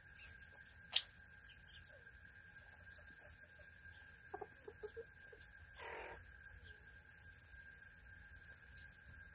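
Quiet chicken run with a few short, soft calls from serama bantam chickens between about four and five seconds in and a brief rasping call near six seconds. A single sharp click about a second in is the loudest sound, over a faint steady high tone.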